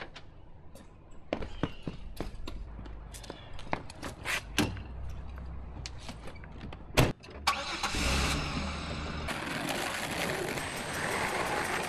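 Scattered clicks and knocks, then a car door shutting with a loud thud about seven seconds in. Right after, a car engine starts and keeps running.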